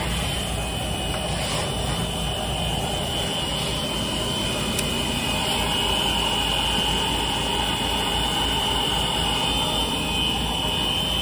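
Machinery of a plastic extrusion and board-coating line running steadily: an even mechanical hum with a constant high-pitched whine over it.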